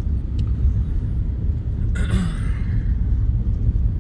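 Steady low rumble of a car driving, heard from inside the cabin, with a brief rustling hiss about two seconds in.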